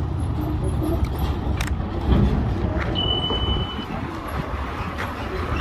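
A large engine running with a steady low rumble, with scattered clicks and a short high steady tone lasting about a second, about three seconds in.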